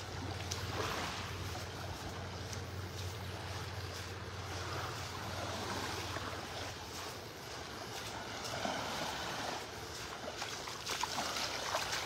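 Small waves lapping softly at the sandy shoreline of a calm sea, a steady low wash with a few light splashes near the end.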